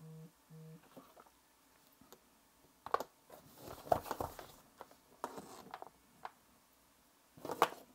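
Two short electronic beeps as a phone starts charging, followed by scattered light clicks and rustles of USB cables and devices being handled and plugged in.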